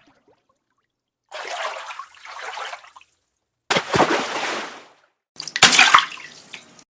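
A series of water splash sound effects: two short, light splashes, then two bigger, fuller splashes, each starting suddenly and fading out.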